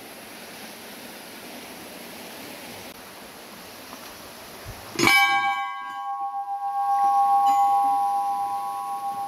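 A brass temple bell struck once about five seconds in, its clang ringing on in several long, wavering tones. Before the strike, only the steady rush of the flowing stream beside the temple.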